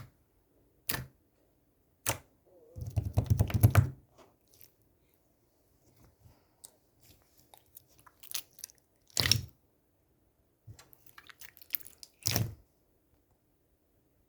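Scattered short clicks and taps, with a quick run of them about three seconds in and two louder single taps later.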